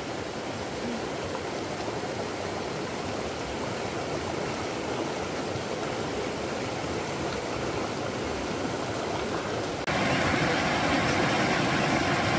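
Steady rushing of a stream, an even wash of water noise that steps up louder about ten seconds in.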